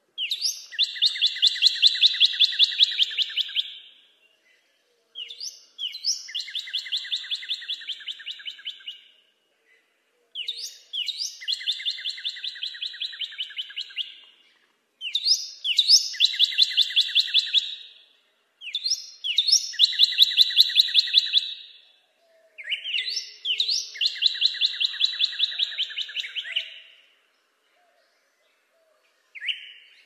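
Northern cardinal singing: six phrases of a few seconds each, separated by short pauses. Each opens with a couple of quick slurred notes and runs into a clear series of repeated notes at about four a second.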